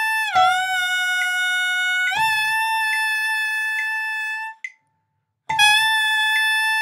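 Alto saxophone mouthpiece played alone, without the horn, sounding its concert A. The tone is lipped down to a lower pitch, held, then lipped back up to the A and held until it cuts off. After a short rest the A sounds again and bends down once more near the end.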